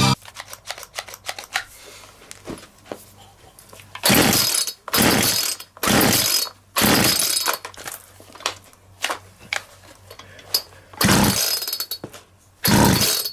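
McCulloch Mac 441 two-stroke chainsaw being pull-started: about five loud bursts of roughly a second each, with light clicks and rattles before and between them.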